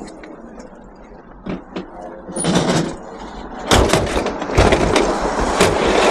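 A scrapped dishwasher being loaded onto a truck: a few knocks, then loud clattering, scraping and banging of metal, heaviest in the second half.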